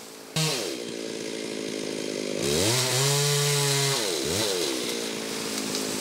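Chainsaw engine starts up suddenly about half a second in and runs, revving up about two and a half seconds in, holding high, dropping back near four seconds, blipping once more, then running steady.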